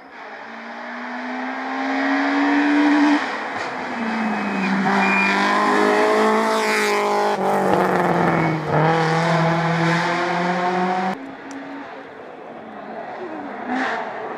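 Rally car engine at full throttle as it approaches and passes, revs climbing, dropping back at a gear change about three seconds in, then climbing again. About eleven seconds in it cuts off abruptly to a quieter, more distant engine sound.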